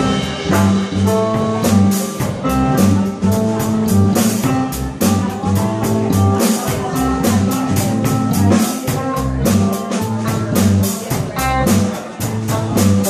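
Live band playing an instrumental passage: drum kit with fast, steady cymbal strokes, electric bass moving through low notes, and electric guitar.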